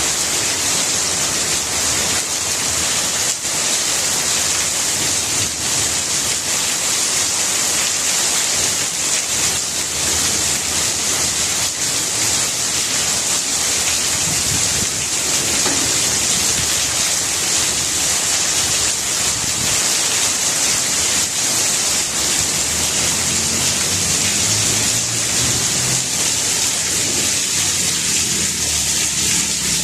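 Steady rain falling on plants and leaves: a dense, even hiss of many small drops.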